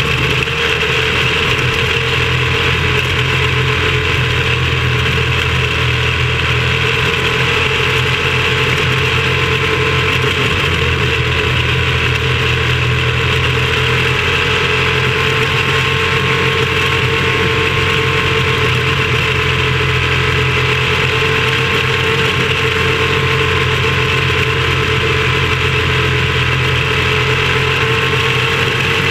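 Small racing car's engine heard onboard, running at steady, nearly constant revs under way, with a steady buzzing note that hardly changes, mixed with wind and road noise.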